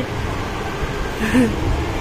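Steady low background rumble, with a brief murmured voice about a second and a half in.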